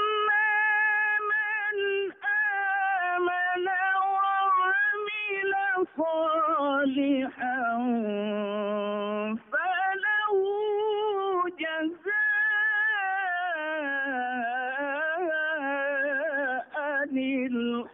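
A man's voice reciting the Qur'an in Arabic in a slow, melodic chant, holding long wavering notes with short breaks between phrases.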